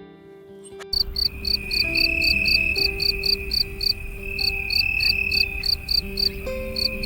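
Insects chirping, starting about a second in: a rapid, even high pulse, about six a second, over a continuous high steady trill.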